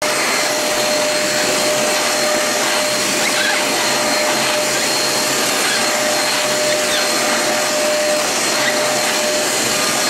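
Housmile handheld UV-C vacuum cleaner running steadily as its nozzle is moved over a woven rug: an even, loud rush of air over a steady motor whine. It has good suction and is not overly loud, but it's got some sound to it.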